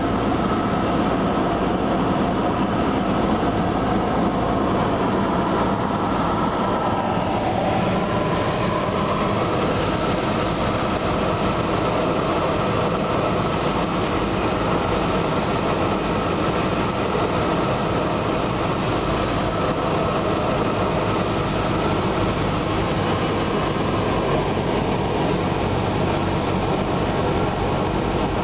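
Cessna 172S's four-cylinder Lycoming engine and propeller droning steadily, heard inside the cabin together with the rush of air over the airframe.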